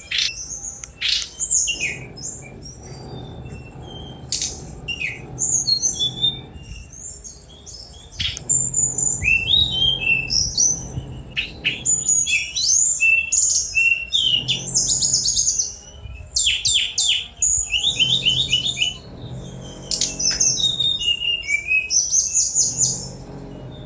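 Tledekan gunung jungle flycatcher singing a rapid, varied song of high chirps, quick trills and short whistled glides, delivered in dense bursts with brief pauses.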